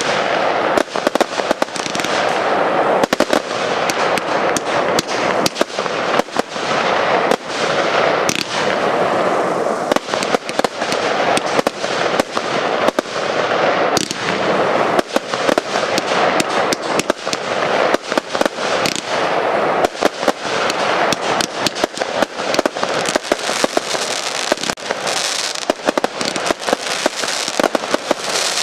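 Fireworks display: a rapid, unbroken barrage of sharp bangs and crackles over a continuous hiss.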